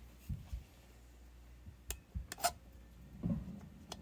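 A few soft knocks and then several sharp, separate clicks of small metal engine parts being handled: the new piston rings of a Stihl 036 chainsaw are squeezed shut by fingernail into their grooves as the cylinder is worked down over the piston.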